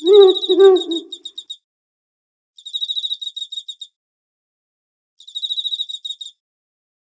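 An owl hooting twice, followed by three short bursts of high, rapid chirping about a second long each, with silence in between.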